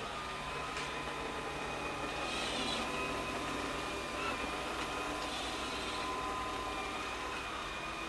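LG HomBot robot vacuum running: a steady motor hum with a thin whine, briefly swelling louder and brighter about two seconds in.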